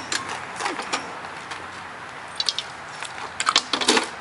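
Light metallic clicks and knocks as the parts of a standing conversion kit are handled and fitted onto a power wheelchair base, with a quick cluster of the loudest knocks near the end.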